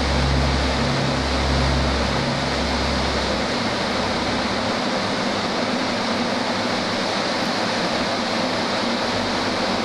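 Steady rushing roar of a fighter jet in flight heard from inside the cockpit, with a low pulsing hum about once a second that stops about three and a half seconds in.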